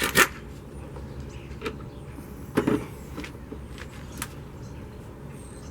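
A few sharp metallic knocks and clicks of a 9/16 wrench working on a mower-deck pulley, the loudest about a quarter second in and another about two and a half seconds in, over a steady low hum.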